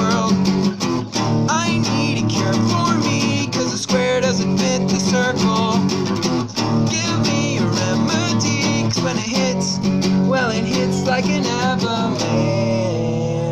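Guitar-driven rock music with strummed guitar and a wavering melody line over steady low notes, playing the instrumental close of the song after the last sung line. It begins to fade at the very end.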